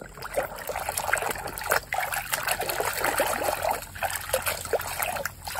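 Muddy water sloshing and splashing in a tub as a hand swishes a toy tanker truck back and forth through it to wash off the mud, dying down shortly before the end.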